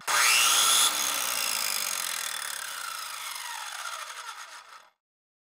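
Power tool sound effect: a loud motor whir that drops in level after about a second, then winds down with a falling pitch for about four seconds before cutting off suddenly.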